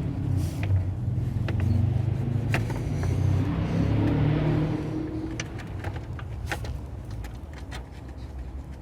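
A motor vehicle's low engine rumble going by, fading over the last few seconds, with light clicks and knocks over it.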